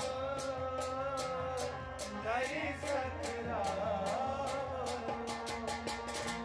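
Background music with a steady, evenly spaced beat under a held melody line.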